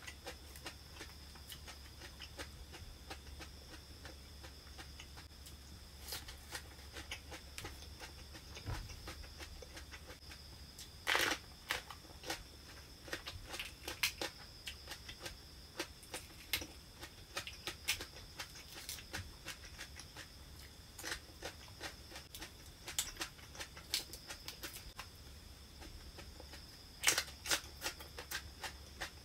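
Close-up eating sounds: crisp raw herbs and vegetables chewed with many small crunches and wet mouth clicks, with leaves torn apart by hand. Louder crunching comes about 11 seconds in and again near the end, over a faint steady high tone.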